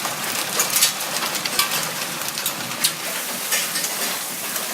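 Hailstorm: hailstones pelting down, many sharp irregular clicks and taps over a steady hiss of rain. It is loud.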